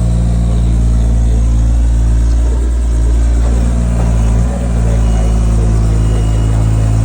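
Engine running steadily at constant speed, a loud low hum, with a brief dip about four and a half seconds in.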